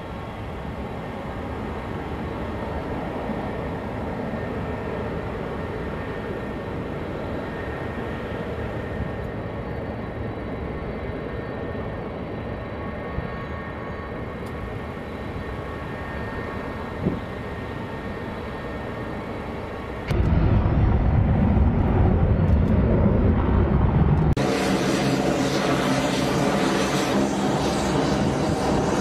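KC-10 Extender's three turbofan engines running at takeoff power as the tanker rolls down the runway and lifts off, a steady jet roar with a whining tone. About two-thirds of the way through it cuts abruptly to a louder, deeper rumble, then a few seconds later to a brighter, hissing roar.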